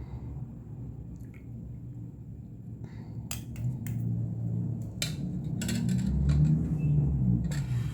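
Light clicks and knocks of kitchen utensils and dishes being handled, starting about three seconds in, over a low background rumble.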